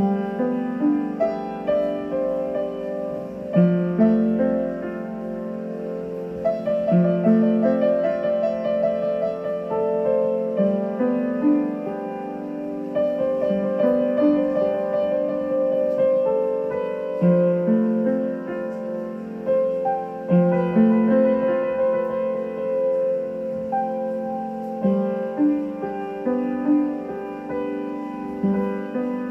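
Slow solo piano music: a melody over lower notes, each note struck and left to fade, with a new note or chord about every second.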